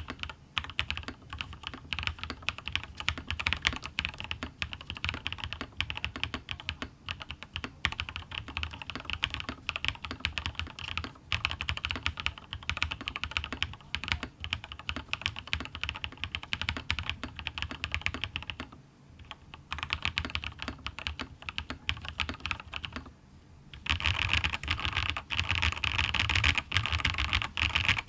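Fast typing on a RAMA KARA SOYA mechanical keyboard with lubed Durock POM linear switches, PBT keycaps and a polycarbonate plate: a dense, continuous run of keystrokes. It breaks off briefly about two-thirds of the way through and again a few seconds later, and the last few seconds are louder.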